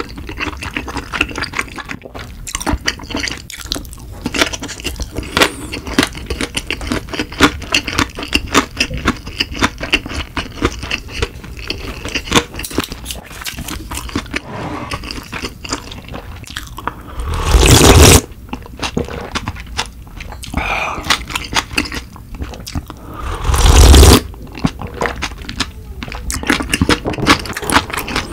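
Close-miked chewing of a sushi roll, with a steady run of wet mouth clicks and soft crunches. Twice, about 17 and 23 seconds in, there is a loud slurp of udon broth drunk from the bowl.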